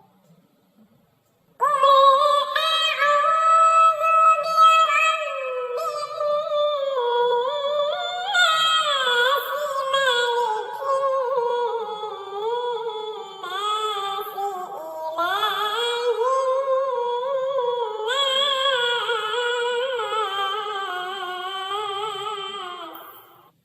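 A high-pitched voice chanting Quranic recitation in a melodic maqam style, with long ornamented phrases of gliding notes. It starts about a second and a half in and stops just before the end.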